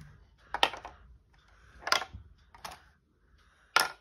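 Plastic Lego bricks clicking and tapping as the marble run is handled: four sharp clicks roughly a second apart, the last one the loudest.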